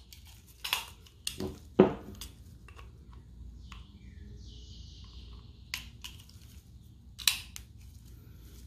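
Sharp clicks and knocks of a Sig P365 pistol magazine, its base plate and a small punch being handled, the loudest a little under two seconds in, with a brief scraping hiss in the middle.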